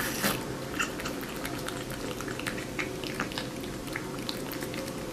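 Close-up cat sounds: a steady low hum with many small clicks and ticks scattered through it.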